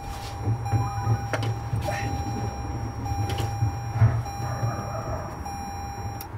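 A GR Yaris's electronic warning tone sounds in long beeps with short gaps over a low steady hum, before the engine is started. A few light knocks come from handling in the footwell.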